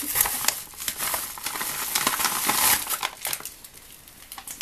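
Crinkly packaging rustling and crackling as a package is unwrapped by hand, dense for about the first three seconds, then thinning to scattered crackles.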